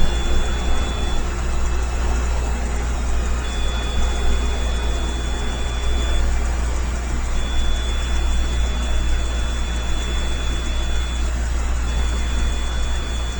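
Steady low machine hum with an even hiss, and a thin high whine that cuts in and out every few seconds.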